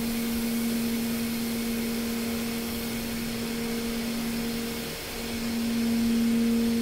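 Steady machinery hum: one low tone with an overtone above an even hiss. The hum drops out briefly about five seconds in, then comes back.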